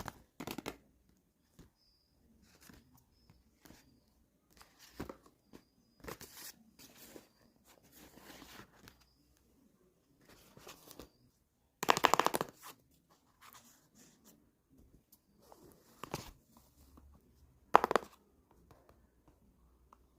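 Blind-bag packaging crinkling and tearing as it is handled and opened by hand, in irregular bursts; the loudest come about twelve seconds in and again near eighteen seconds.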